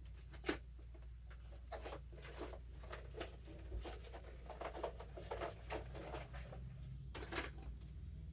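Small product sample containers and packaging being handled: a sharp click about half a second in, then light rustling and tapping, with another cluster of taps near the end. A steady low hum runs underneath.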